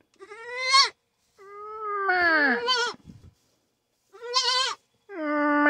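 Baby goat bleating four times in high calls, the second and fourth long and drawn out. These are a hungry kid's calls for milk.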